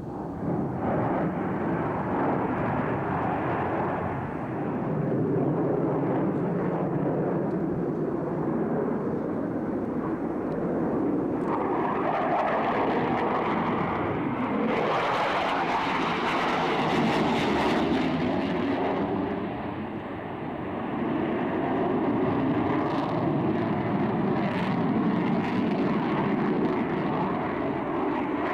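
Jet noise from Blue Angels F/A-18 Hornet fighter jets passing through their display, a continuous rumble that swells to its loudest in the middle, dips briefly about two-thirds through, then builds again.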